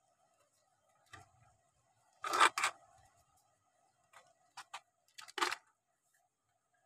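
Handling noise: a few sharp knocks and clicks, the loudest a quick double knock about two and a half seconds in and another near the end, over a faint steady hum.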